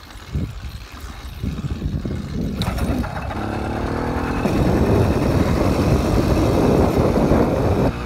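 80cc bike engine pulling away and gathering speed, getting steadily louder. From about the middle, a loud rushing wind noise on the microphone takes over as the bike gets moving.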